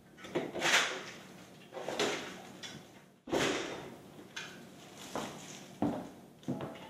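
A door being handled: a series of sharp knocks and clatters, each fading quickly, the sharpest about three seconds in.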